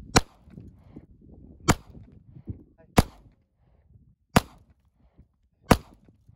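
Five shots from a Springfield Armory 911 subcompact .380 ACP pistol, fired one at a time at a steady pace of roughly one every second and a half.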